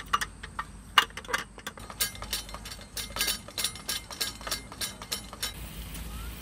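Rapid clicking and clinking of a roll-up slat camping table being unrolled and set up, with a small camping stove set down on it. Near the end the clicks stop and a steady hiss begins, the stove's fuel flowing before it is lit.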